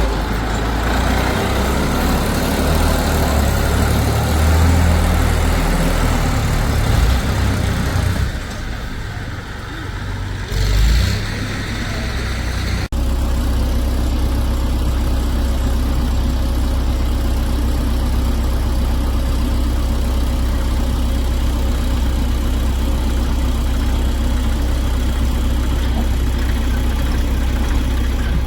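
Diesel engine of heavy machinery running. It is rough and loud at first, drops for a couple of seconds, and then after an abrupt break settles into a steady, even idle.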